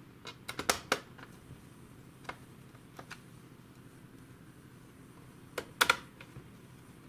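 Sharp plastic clicks and taps from hands pressing and fitting parts on a laptop's plastic bottom case. There is a quick cluster in the first second, a couple of single clicks after that, and the loudest cluster near the end.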